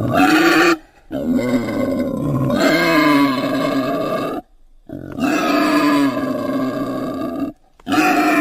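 Wild boar grunting in long, loud calls, broken by three brief silences.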